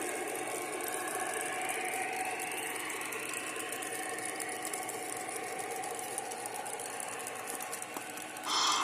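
O gauge model train running on track, with a steady rattle of wheels and a faint motor whine that rises in pitch in the first few seconds. A short, louder tone sounds near the end.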